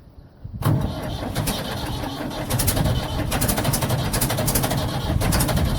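Ford 755B backhoe's diesel engine on a cold start, coming in suddenly about half a second in and then running steadily.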